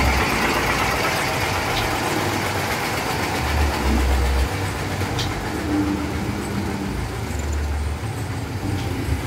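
Engine of a loaded Mitsubishi Fuso diesel truck running at idle with street traffic noise. A low rumble swells up twice, about four seconds in and near the end.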